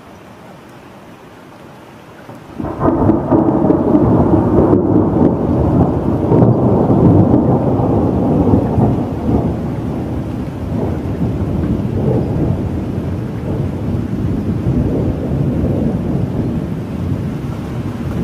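Thunder over a steady hiss. A sudden loud clap comes about two and a half seconds in and rolls on as a long rumble, easing off slowly but still going at the end.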